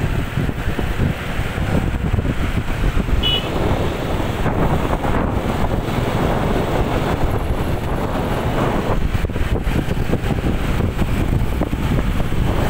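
Wind buffeting the microphone of a camera riding on a moving motor scooter, mixed with the running of scooter engines and tyres on the bridge deck. Steady and loud throughout.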